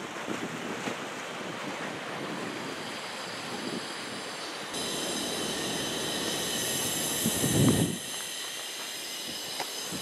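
Surf breaking under wind buffeting the microphone. About halfway through the sound switches suddenly to a steady high hiss, with a loud low rumble of wind on the microphone shortly before it drops away.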